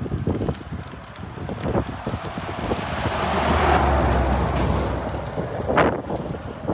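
Wind rushing and buffeting over the microphone of a rider cycling at speed, with a vehicle passing by: a rumbling swell that rises to its loudest about halfway through and fades.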